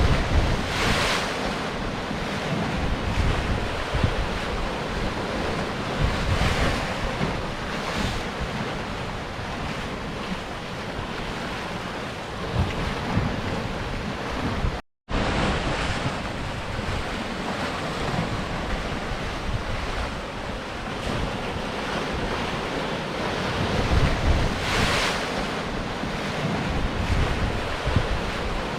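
Sea surf breaking and washing on rocks, a continuous rushing with waves surging in every few seconds, and wind buffeting the microphone. The sound cuts out for a split second about halfway through.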